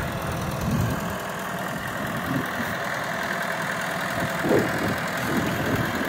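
Massey Ferguson 5455 tractor's diesel engine running steadily as it pulls a two-furrow reversible plough.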